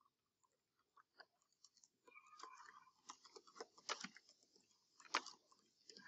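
Computer keyboard typing: faint, irregular key clicks, a few scattered ones at first, then a quicker run of keystrokes from about two seconds in.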